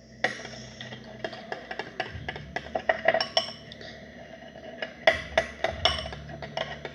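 A utensil stirring glue and green food colouring in a container, clinking and tapping irregularly against its sides as slime is mixed.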